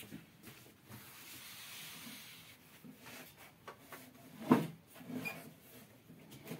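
Chalk writing on a blackboard: a long scratchy stroke about a second in, then short scraping strokes as letters are formed, with one sharper tap of the chalk about halfway through.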